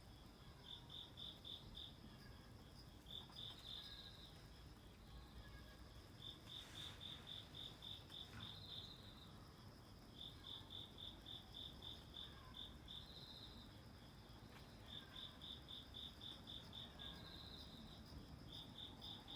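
Crickets chirping faintly: runs of quick, high chirps at about five a second, broken now and then by a short trill.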